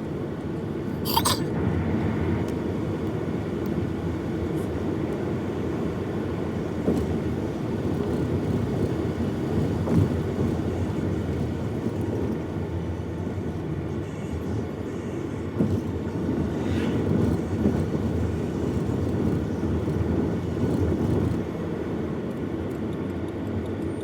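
Steady low road rumble of a car, heard from inside the cabin while driving, with a short sharp sound about a second in.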